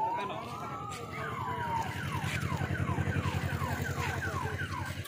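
Electronic siren: one slow rising-then-falling wail, then a quick run of short falling yelps, about three a second. A low steady throb runs underneath.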